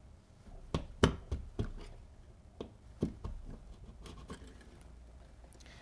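Thin sheet-metal Madison bar clicking and scraping against a metal electrical box as it is worked into the drywall opening: a string of small sharp clicks, most of them in the first three seconds.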